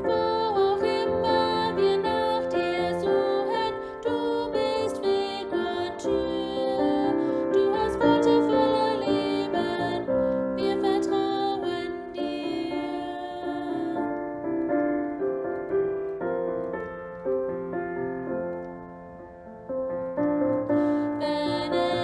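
Slow, gentle piano music accompanying a church song. It drops quieter for a few seconds in the second half, then picks up again.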